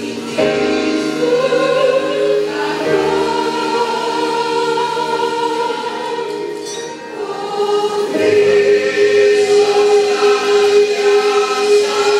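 Youth choir singing a gospel hymn in several voices, holding long notes and swelling louder about eight seconds in.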